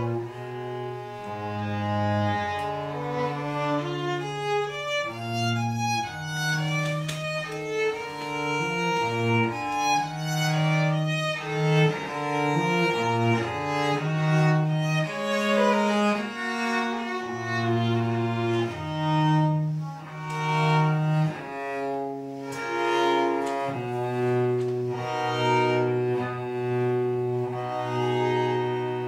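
A violin and a cello-sized bowed bass instrument playing a classical duo live: a moving violin melody over lower held notes.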